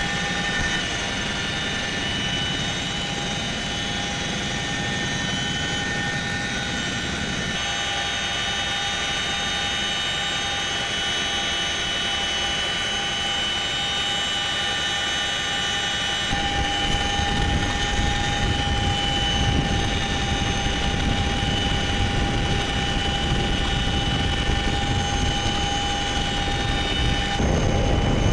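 Boeing CH-47 Chinook's turbine engines and rotors heard from inside the cabin: a steady high whine over loud rushing noise. The sound changes abruptly about 7 and 16 seconds in, with a heavier low rumble in the latter part.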